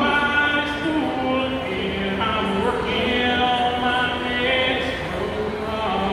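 A young man singing solo into a handheld microphone, his voice amplified through small stage speakers, holding long notes that slide from pitch to pitch.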